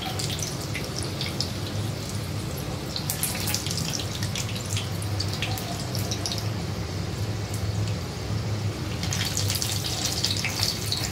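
Spring rolls deep-frying in hot oil, the oil bubbling and crackling steadily around them as a slotted spoon moves them about. The crackling thickens about three seconds in and again near the end.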